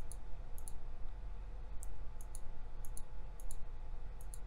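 Computer mouse buttons clicking about a dozen times, many of the clicks in quick pairs, as colours are picked one after another.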